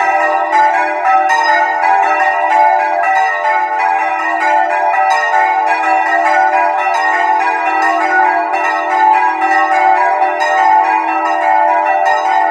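Several church bells swung full circle by hand on ropes, Bolognese-style, their strikes coming in quick succession and overlapping into a continuous loud peal, heard close up in the bell chamber.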